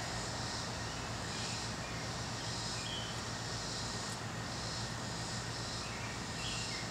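Insects buzzing in a steady pulse, about one burst a second, over a low continuous hum, with a couple of faint short chirps.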